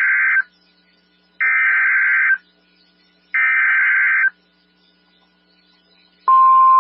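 NOAA Weather Radio EAS/SAME header: the end of one buzzing digital data burst, then two more bursts of about a second each with a second of quiet between them. The header encodes an Evacuation Immediate alert. Near the end the steady single-pitch 1050 Hz warning alarm tone starts abruptly.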